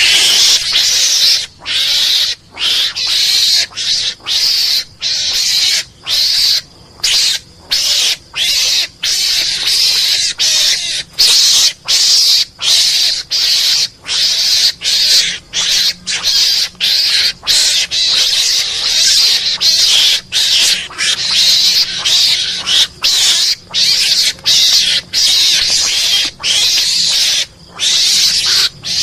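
Mongoose (garangan) lure call played as a hunting lure: short, harsh, hissing calls repeating about one and a half times a second with brief gaps between them.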